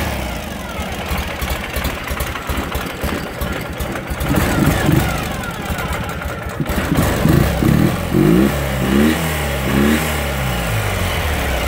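2013 Ural Gobi's 750 cc air-cooled boxer twin running on a cold start with the enricheners (chokes) pulled out. It idles, and the revs rise and fall several times in the second half.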